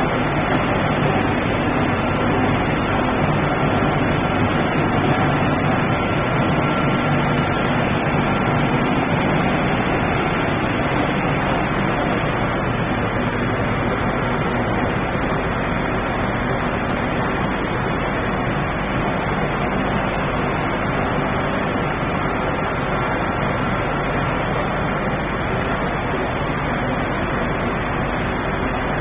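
Sawdust rotary drum dryer line running: a steady, even mechanical noise from the working plant, with a faint steady whine that fades near the end.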